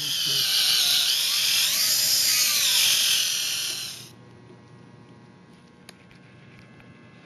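Dental drill whining at a high pitch, wavering up and down, for about four seconds, then stopping abruptly.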